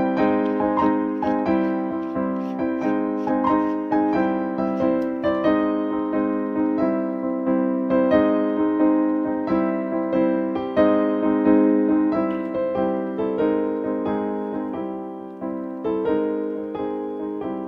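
Background music: solo piano playing a gentle, slow melody, each note struck and fading away.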